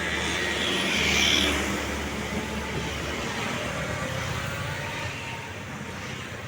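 A motor vehicle passing on the road: engine hum and tyre noise swell to a peak about a second in, then slowly fade.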